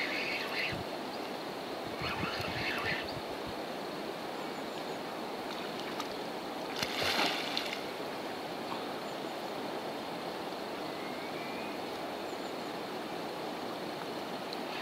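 Steady rushing of water, with three brief hissing splashes: one right at the start, one about two seconds in and one about seven seconds in.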